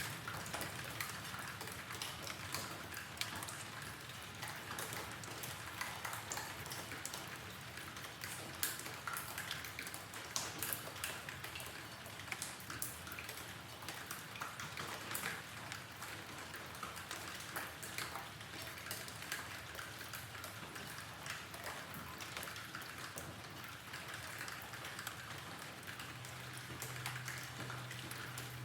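Steady rain with many individual drops pattering and ticking on surfaces. A faint low hum comes in near the end.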